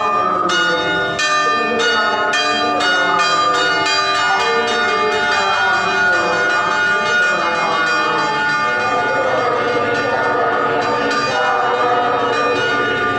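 Church bells pealing, struck in quick succession for the first few seconds and then more sparsely, each stroke ringing on into the next.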